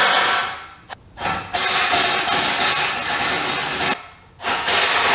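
Ryobi cordless drill drilling out the stud holes of a metal engine windage tray, a sustained grinding whir in three runs with short pauses about a second in and at about four seconds.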